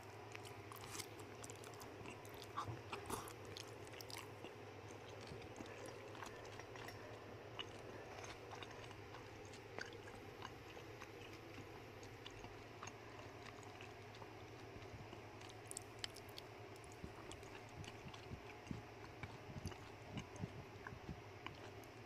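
Rat chewing and gnawing food: faint, scattered small crunching clicks over a steady low hum.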